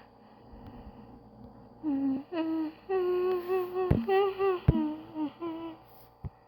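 A voice humming a short tune in a run of held notes, with two sharp clicks in the middle of it.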